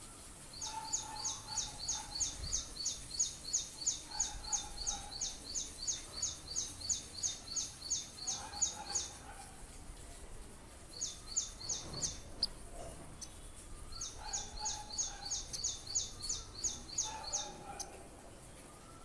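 A small bird giving fast, even runs of high chirps, about three or four a second, in three bouts: a long one of about eight seconds, a short one near the middle, and another of about four seconds later on. Fainter, lower calls come and go beneath them.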